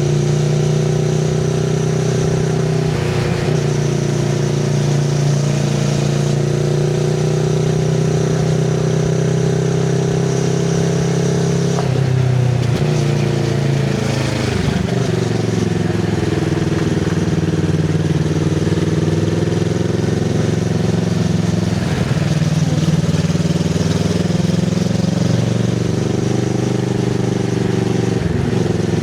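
2024 Kawasaki Z650RS parallel-twin engine running under way through an IXIL MK2 full exhaust with the dB killer fitted, its note rising and falling gently with the throttle. The pitch drops briefly a few times, most clearly in the middle.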